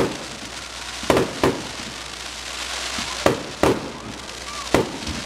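Aerial fireworks bursting: six sharp booms, mostly in pairs about a third of a second apart, with crackling between them near the middle.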